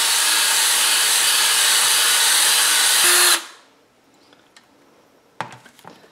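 Electric drill spinning a buffing pad against a plastic tail light lens, a loud steady whirr that cuts off suddenly about three and a half seconds in. A few light knocks follow near the end.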